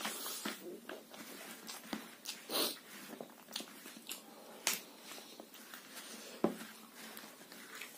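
Close-up eating sounds: a man chewing and smacking his lips as he eats rice and curry by hand, with the soft squish of his fingers mixing rice on a banana leaf. Scattered small clicks, a few sharper ones about two and a half, four and a half and six and a half seconds in.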